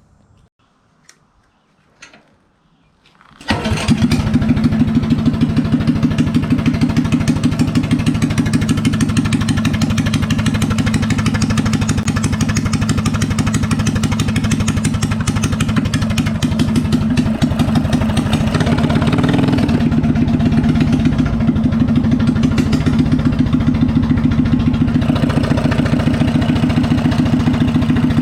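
Coleman BT200X minibike's small single-cylinder engine starting up abruptly about three seconds in, then running steadily at an even idle on its newly fitted E3 spark plug.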